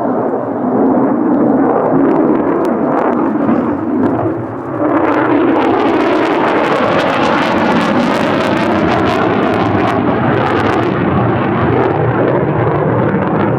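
Jet noise of an F-35A Lightning II's single Pratt & Whitney F135 engine during a demonstration flight. A loud rumble turns harsher at about five seconds, with a dense ragged crackle, and eases off near the end.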